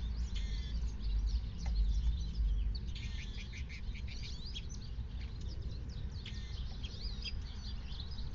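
Several small songbirds chirping and twittering in quick overlapping calls, busiest midway through, over a low steady rumble.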